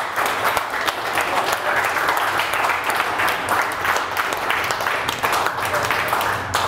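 A group of hockey players applauding, many hand claps blending into a dense, steady sound.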